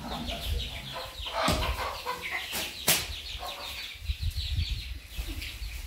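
Chickens clucking, with rapid high chirps throughout and two sharp knocks, the louder one about three seconds in.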